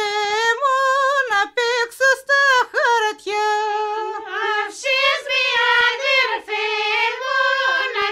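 A high voice singing a Greek folk song melody unaccompanied by anything clearly audible, in short phrases of held notes with ornamented bends between them.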